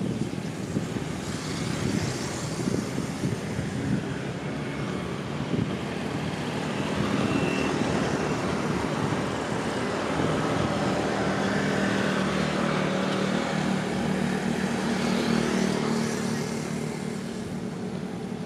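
Road traffic: a motor vehicle's engine hum swells about seven seconds in, holds, and eases near the end, over steady traffic noise.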